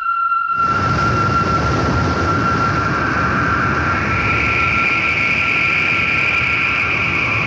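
Rushing river water, a steady loud rush that comes in suddenly about half a second in. A high held musical note sounds under it.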